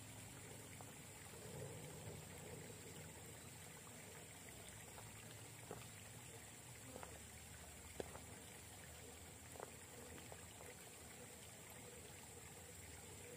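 Faint steady hiss of outdoor background with a few light clicks and knocks in the middle, from a small RC rock crawler's tyres and chassis working over rock.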